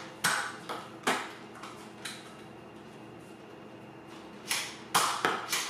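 Sharp plastic clicks and clacks from a Nerf Zombie Strike Crosscut spring blaster being handled: a few in the first second, then a quiet stretch, then a quick run of four clicks near the end.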